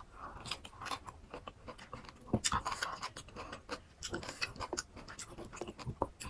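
Close-miked chewing of crunchy raw fruit from a fruit rujak: irregular crisp crunches and wet mouth clicks.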